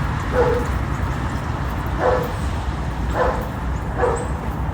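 A dog barking four times at irregular intervals, over a steady low rumble.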